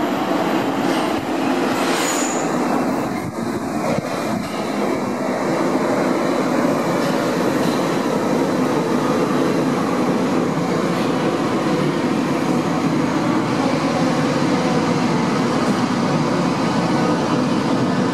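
Munich U-Bahn train coming in from the tunnel and running along the station platform: a steady, loud rumble of wheels on rails, with a brief high-pitched tone about two seconds in.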